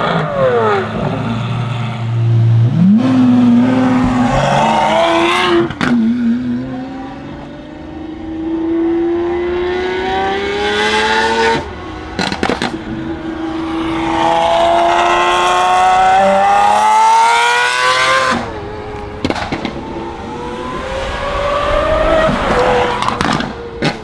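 Lamborghini Aventador SVJ V12 with a Gintani F1 exhaust, accelerating hard. Its pitch climbs in long pulls and drops suddenly at each upshift, with sharp cracks at the shifts.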